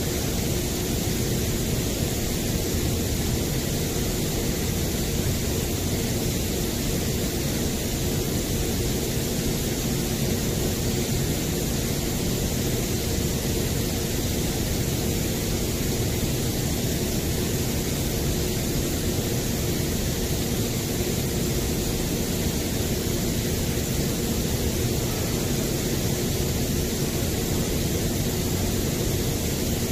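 Misting equipment spraying a fine fog: a steady rushing hiss of spray and fan with a low motor hum, unchanging throughout.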